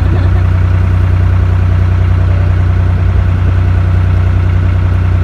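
Narrowboat's diesel engine running steadily under way, a constant low hum.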